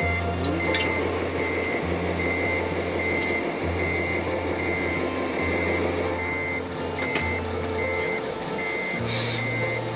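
Reversing beeper on a radio-controlled scale truck, beeping evenly a little under twice a second over a low diesel-like engine drone; a short hiss about nine seconds in.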